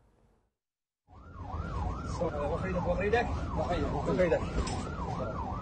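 An emergency-vehicle siren wailing up and down quickly, about two sweeps a second, starting about a second in. Under it are a low rumble of street noise and voices.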